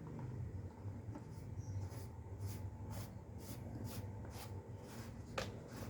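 Plastic thermos part being screwed back into place: a run of light scraping ticks, about two a second, with one sharper click near the end, over a low steady hum.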